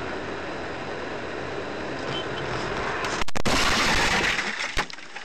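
Road and vehicle noise: a steady rush that jumps abruptly louder about three seconds in.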